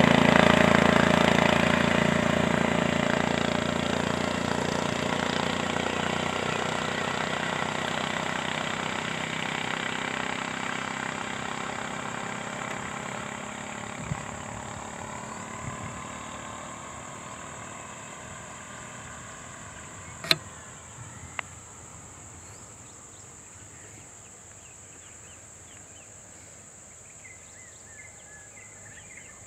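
Motorcycle engine running and fading steadily as the bike rides away, with a second small engine revving further off. A steady high-pitched drone underlies it, and two sharp clicks come about twenty seconds in.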